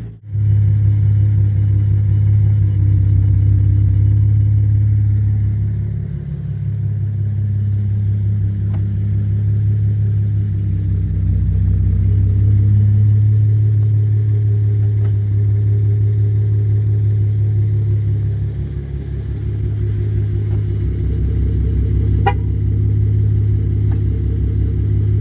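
Car engine running steadily with a low, even drone, easing slightly twice, and a single sharp click near the end.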